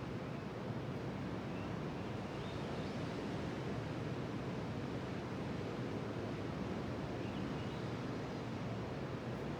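Pacific Ocean surf: a steady, even wash of waves with no single break standing out.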